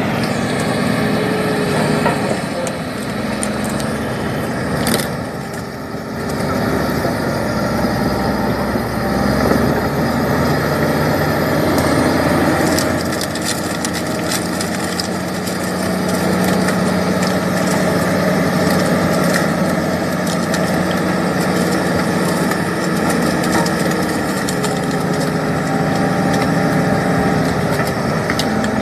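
Komatsu D65EX bulldozer's diesel engine running steadily as its tracks roll over and crush packed boxes of red caviar, with scattered sharp cracks of packaging breaking. The engine hum grows stronger about halfway through.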